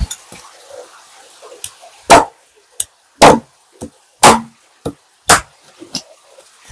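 Chopping on a cutting board: four heavy strokes about a second apart, with lighter taps between them.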